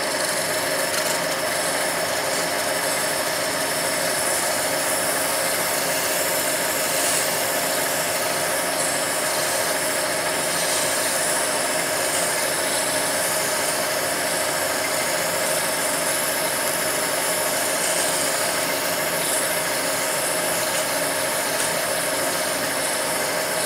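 Capstan lathe running steadily with a constant whine, while emery cloth is held by hand against the spinning workpiece to polish it, giving a steady rubbing hiss.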